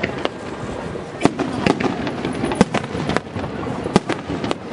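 Aerial firework shells bursting in a rapid, irregular series of sharp bangs over a steady rumble, the loudest bang about four seconds in.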